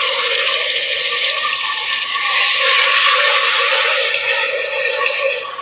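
Ginger-garlic paste sizzling loudly in hot oil with fried onions in a steel pot as it is stirred, a dense steady hiss that drops off sharply near the end.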